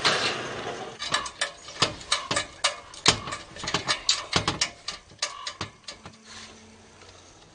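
A quick, irregular run of sharp clicks and knocks for about five seconds, after a hiss that fades out in the first second.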